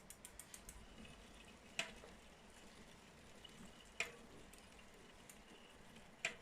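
Bicycle freehub ratchet clicking quickly for a moment, then three single sharp knocks about two seconds apart, each with a short metallic ring: the knock the bicycle makes while riding.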